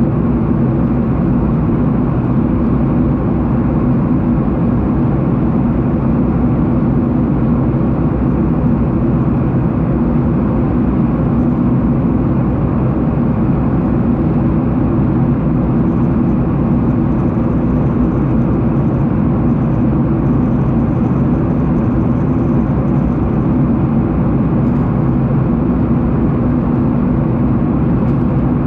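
Steady drone of a jet airliner heard from inside the passenger cabin: engine and airflow noise, loud and unchanging, with a low hum.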